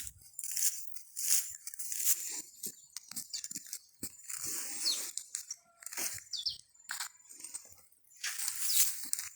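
Irregular crunching and scraping of soil and leaf litter, in uneven bursts with short gaps, as when digging for maleo eggs.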